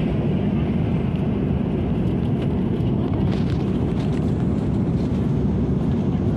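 Steady low rumble of an Airbus A330-300's cabin in cruise, the engine and airflow noise heard from a passenger seat. A few faint clicks come about three seconds in.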